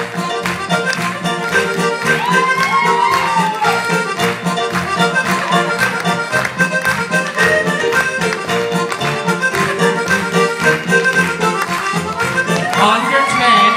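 Irish traditional dance tune played on accordion, with a steady, even beat.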